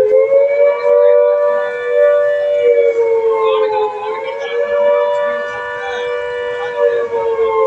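Civil defence siren sounding a mock-drill alert: a loud, held wail of two close tones that sags slightly in pitch about four seconds in and again near the end, then recovers.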